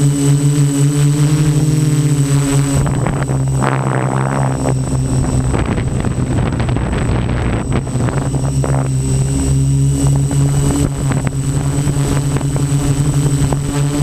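Quadcopter's electric motors and propellers running in flight: a loud, steady multi-tone hum with a thin high whine above it. About three seconds in, the hum turns rough and uneven for a couple of seconds, then settles back to a steady pitch.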